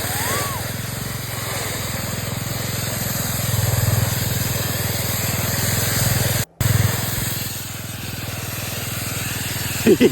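A four-wheeler's engine running at low speed under a steady hiss of a plastic pool sliding over snow as it is towed.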